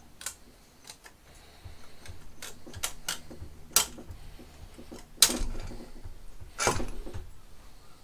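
Metal clicks and clinks from the cylinder head of a Honda CB750 engine being handled and worked loose by hand, with three sharper knocks in the second half.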